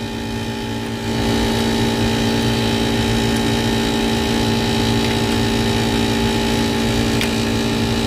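Steady mechanical hum of running machinery, with several fixed tones over a low drone, a little louder from about a second in.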